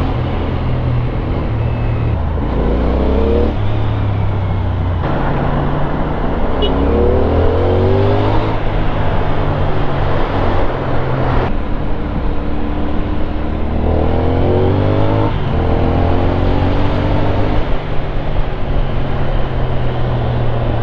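CFMOTO 450NK's 449 cc parallel-twin engine pulling away under way, its revs climbing and dropping back several times as it shifts through the gears, over steady road noise.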